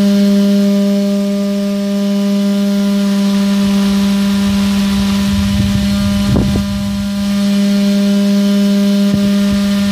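Small DC motor spinning a toy fan, running with a loud, steady hum. The fan is blowing the chaff out of wheat poured in front of it.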